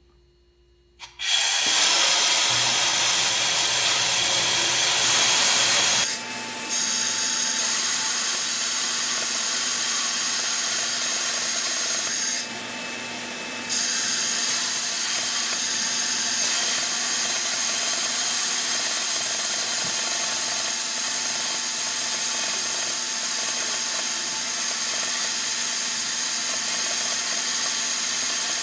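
Handheld plasma cutter cutting a metal plate: a loud, steady hiss of the arc and air that starts about a second in and dips briefly about halfway through.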